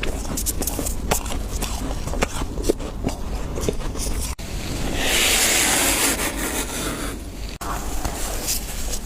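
Close-up crunching of freezer frost, a rapid run of squeaky, crackly crunches, broken about halfway by a couple of seconds of steady scraping of the frost before the crunching resumes.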